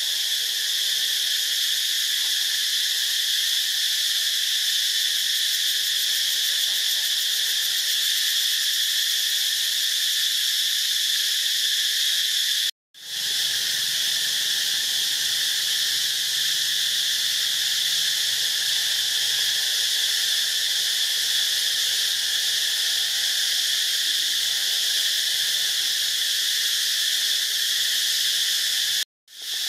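Steady, high-pitched chorus of insects droning without a break. It cuts out for a moment twice, about halfway and near the end, each time fading back in.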